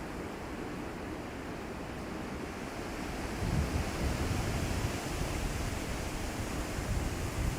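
Wind gusting through trees and rustling leaves, strengthening about three seconds in, with the gust buffeting the microphone in a low rumble.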